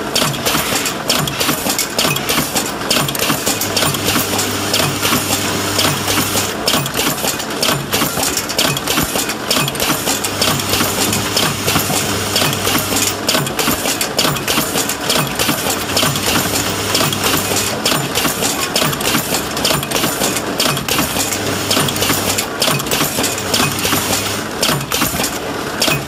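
Horizontal flow wrapping machine running as it wraps switch panels in clear film: a steady mechanical clatter full of rapid clicks, with a low hum that comes and goes every few seconds.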